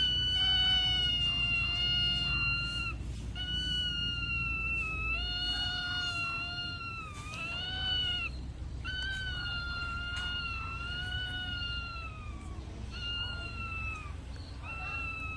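Parrot giving a run of long, steady whining calls, each lasting one to three seconds, one after another with short breaks.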